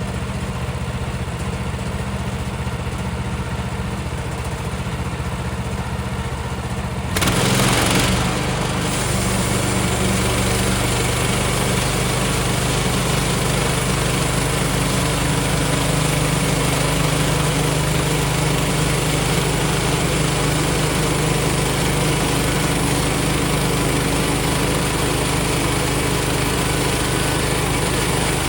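Small gas engine of a portable bandsaw sawmill running steadily, with a tractor idling along. About seven seconds in, the sound jumps to a louder, fuller noise that holds steady as the band blade cuts through a pine log.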